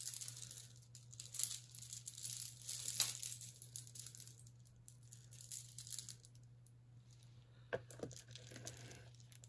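Faint rattling and clicking of a strand of colorful wooden beads being handled, with a few sharper clicks and soft rustling.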